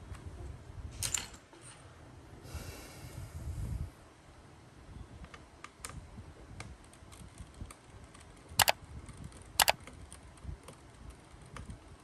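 Light clicks and taps of fingers handling the copper M.2 SSD cover inside an opened HP Victus 16 laptop, with a brief rustle near the start and two sharp clicks about a second apart later on.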